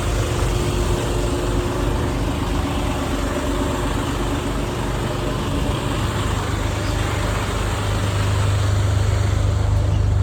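Heavy vehicle engine idling, most likely a fire truck's. It keeps up a steady low hum that grows louder near the end.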